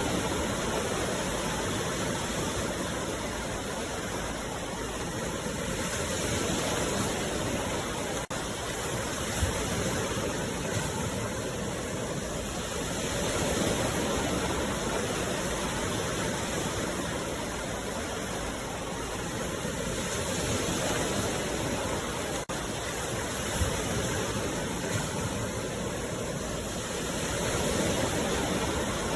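Sea waves breaking and washing onto the shore: a steady rush of surf that swells and eases about every seven seconds.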